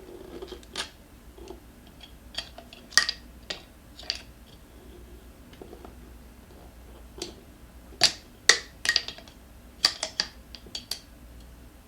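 Irregular sharp clicks and clinks of a metal tire spoon and vice grip against the scooter wheel rim as the tire bead is pried over it. They come in a cluster about three seconds in and again from about eight to eleven seconds in.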